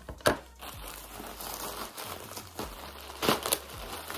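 Plastic poly mailer bag crinkling and tearing as it is pulled open by hand, with a sharp louder rip just after the start and another near the end.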